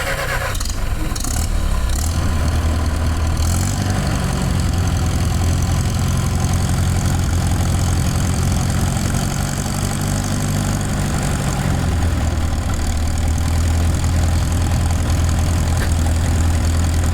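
Massey-Harris 44 tractor engine running steadily at idle, its engine speed changing about four seconds in and again about twelve seconds in.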